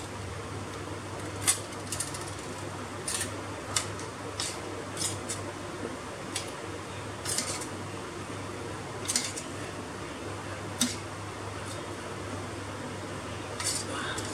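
Steel spoon clinking against a steel plate and tiffin box as hilsa pieces are laid into mustard paste and coated, about a dozen light, irregular clinks. A steady low hum runs underneath.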